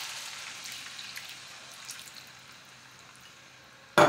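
Milk poured into a hot frying pan of browned ground beef and mushrooms, the sizzle dying away as the milk cools the pan. A single short knock near the end.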